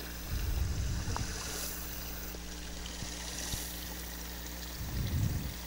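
Faint steady trickle of shallow running water over stones, with two brief low rumbles, one about half a second in and one near the end.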